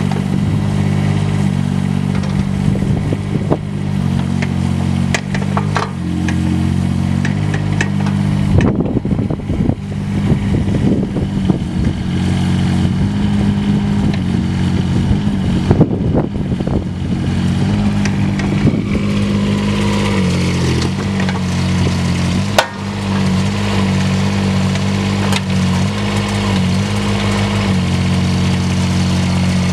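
Bobcat 316 mini excavator's Kubota three-cylinder diesel running steadily as the boom, arm and tracks are worked. Its note dips and recovers now and then, with a few sharp metal clanks.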